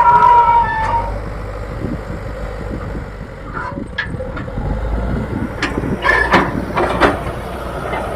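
Diesel engine of an old Leyland Deere 435 backhoe loader running as it works. A whine stops about a second in, and several sharp clanks come in the second half.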